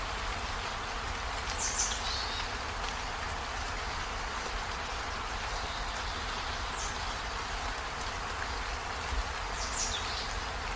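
Steady rain falling, an even hiss of drops, with three short high chirps, one near the start, one mid-way and one near the end.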